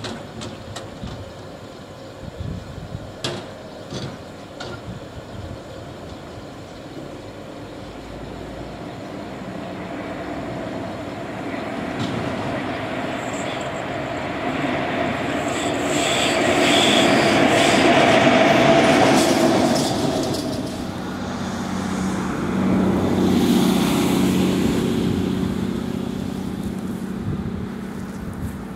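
A lone electric locomotive running light on the main line: wheel-on-rail noise with a steady whine that grows louder as it approaches and passes, at its loudest a little past halfway, then eases off.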